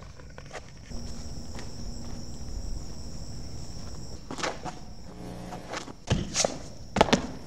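Footsteps and scuffing on pavement over a steady high-pitched whine, with a few louder knocks and scrapes in the second half.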